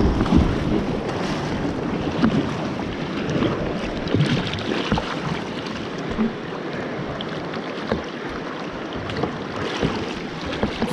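Shallow river water rushing and splashing around a kayak's hull through a low-water riffle, with occasional paddle splashes and wind buffeting the action-camera microphone.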